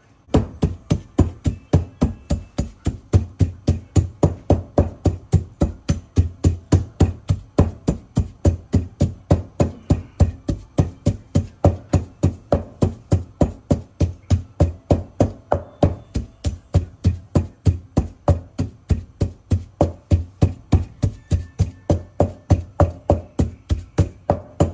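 Wooden pestle pounding fresh chilies in a metal mortar bowl: a steady run of knocks, about three a second.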